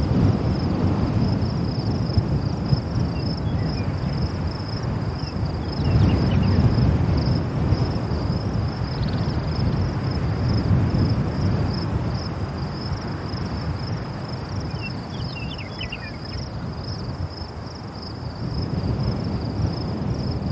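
Strong wind blowing in gusts, a low rushing noise that swells about six seconds in and again around ten seconds, then eases off. A steady, high-pitched insect drone runs underneath throughout.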